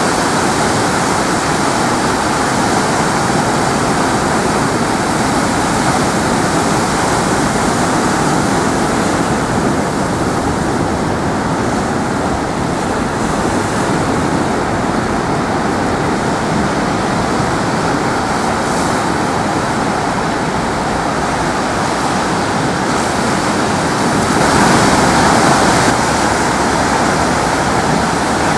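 Steady wash of breaking ocean surf, briefly louder for a couple of seconds near the end.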